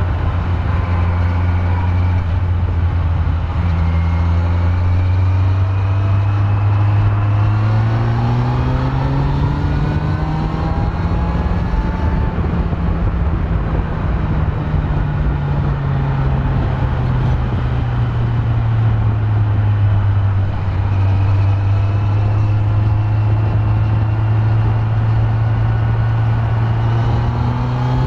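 Kawasaki Z900's inline-four engine with its stock exhaust, running as the bike rides. It holds a steady note, then climbs in pitch as it accelerates about a third of the way in, eases back down, holds steady again and starts climbing near the end.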